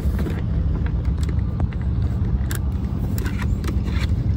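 An engine running with a steady low hum, with scattered clicks and rattles from a motorcycle helmet being handled.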